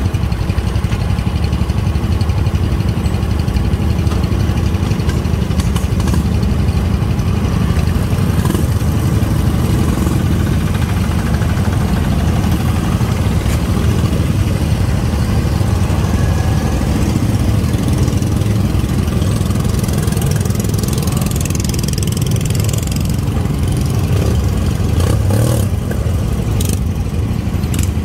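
Small engines of several garden tractors running steadily as a line of them drives past.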